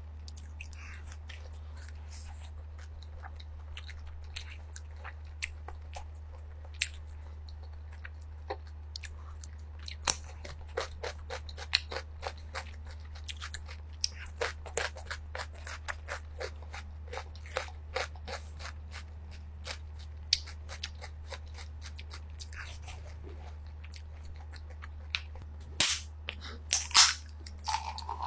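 Close-miked crunching and chewing of fresh cucumber sticks and fried seafood cheese balls: many short crisp crunches, densest through the middle, with a few louder clicks near the end. A steady low hum runs underneath.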